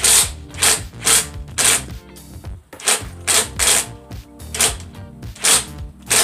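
Cordless drill driving a screw into a plastic throttle-controller mount in repeated short bursts, about two a second, with background music underneath.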